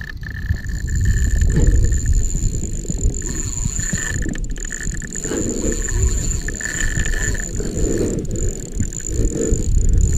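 Fishing reel and rod working while a big fish is played on the line, with mechanical reel noise and a steady low rumble of handling and wind on the action camera's housing.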